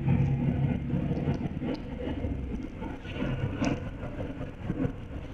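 Inside a moving bus: a low engine drone with road noise and cabin rattles; the drone drops away about halfway through, leaving the rattling and road noise.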